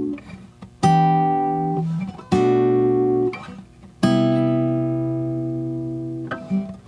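Guitar chords, each struck once and left to ring out: three about a second and a half apart, then a softer one near the end.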